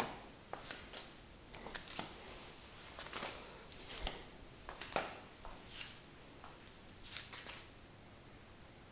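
Handling noise from a handheld camera being moved around: irregular light rustles and clicks that die away near the end.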